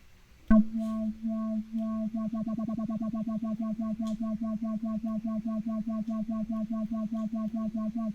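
Software synthesizer built in Max/MSP playing one low electronic tone. It starts with a sharp click about half a second in and then pulses rapidly, several times a second, with a slight wobble in pitch later on.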